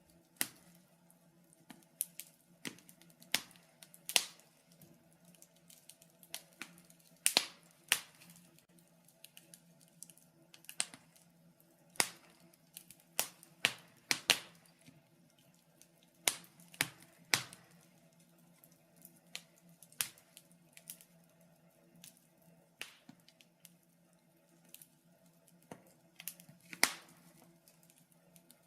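Wood fire crackling in a fireplace: irregular sharp pops and snaps at uneven intervals, some louder than others.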